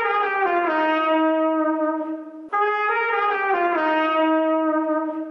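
Schagerl cornet playing a short phrase of notes stepping downward, then the same phrase again from the top.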